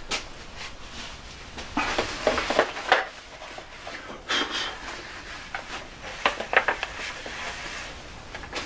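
Workshop handling noises: irregular knocks, clatters and scrapes as tools and a wood blank are handled at the lathe. They come in clusters about two, four and six to seven seconds in. The lathe is not running.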